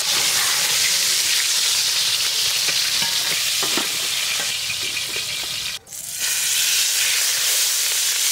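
Pieces of rohu fish frying in hot oil in a pan: a steady, loud sizzle, with a few light knocks about halfway through. The sound drops out abruptly for a moment about six seconds in.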